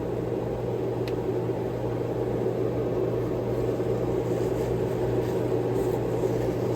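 Steady hum and whir of a running appliance motor, with a single light click about a second in.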